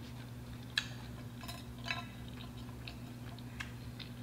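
A person chewing a mouthful of crunchy battered corn dog with her mouth closed: a handful of short, sharp crunches and mouth clicks, spaced irregularly, over a steady low hum.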